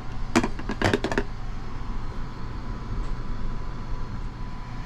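A handful of sharp plastic clicks and rattles in the first second or so as a pull-out black plastic ashtray is handled, over the steady hum and rumble of the Sunrise Seto sleeper train running, heard inside the compartment, with a faint steady whine.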